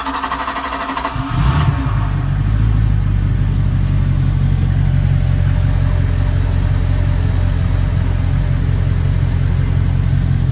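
Port Mercury MerCruiser 350 Mag MPI V8 marine engine being cranked by its starter, catching about a second in and settling into a steady idle of about 600 rpm.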